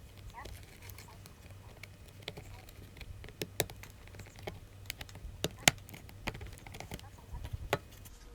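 Irregular sharp clicks and small snaps of plastic as the case of a Sony PRS-T2 e-reader is pried apart with a small pry tool, its clips coming loose along the side; the loudest snap comes a little past halfway. A steady low hum runs underneath.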